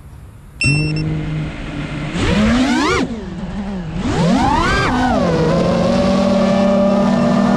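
Brushless motors and propellers of a GEPRC Mark 5 FPV quadcopter starting up with a sudden whine, then two sharp rising-and-falling whines as the throttle is punched on takeoff. The whine then settles into a steady, even pitch.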